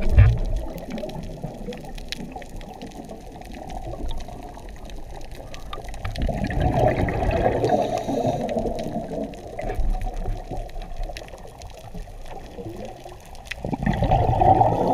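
Scuba diver breathing through a regulator underwater, heard muffled through the water: a dull rushing of exhaled bubbles that swells twice, about six seconds in and again near the end.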